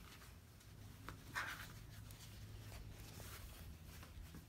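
Faint rustle of fabric being handled on a cutting mat, with a light click about a second in, over a steady low hum.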